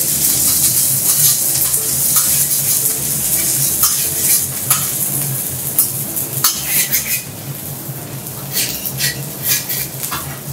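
Minced garlic sizzling in oil on a steel teppanyaki griddle, with a metal spatula and fork scraping and clicking on the plate as it is spread and turned. The sizzle grows quieter over the second half.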